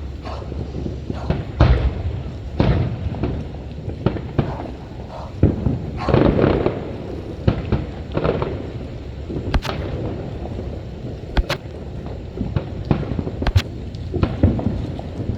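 Fireworks going off: an irregular run of sharp bangs and cracks over a continuous low rumble of further explosions, with a louder burst about six seconds in.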